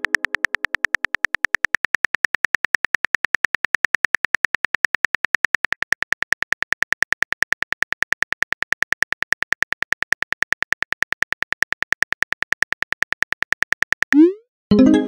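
Phone keyboard typing sound effect: an even run of short key clicks, about seven a second, as a message is typed out. Near the end a short rising swoosh sounds as the message is sent, followed by a bright chime.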